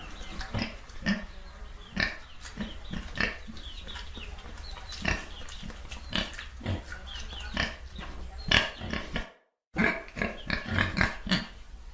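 Pigs grunting and oinking, short grunts coming thick and fast one after another. About three-quarters of the way through there is a brief gap of silence, then the grunting resumes.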